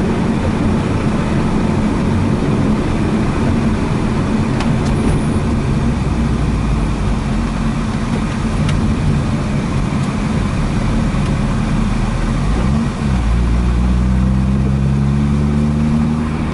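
Mazda RX-8's two-rotor rotary engine under hard driving on track, mixed with heavy wind noise. About three-quarters of the way through the note drops for a moment at a gear change, then climbs steadily as the car accelerates again.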